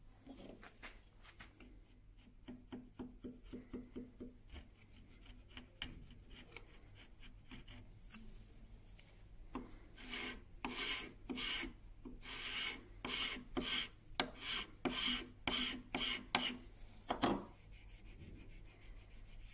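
Hand filing or abrading across the end of a small wooden block held in a vise, in back-and-forth strokes. The strokes are faint and quick at first, about four a second, then louder and slower, about two a second, through the latter part.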